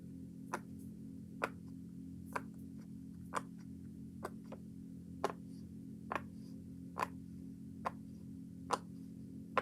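Silicone pop-it fidget toy being pressed bubble by bubble on its soft, quiet side: a short, soft pop about once a second, ten or so in a row.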